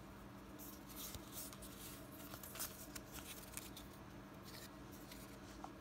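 Faint rustling and light clicks of Pokémon trading cards being slid and rearranged in the hands, over a steady low electrical hum.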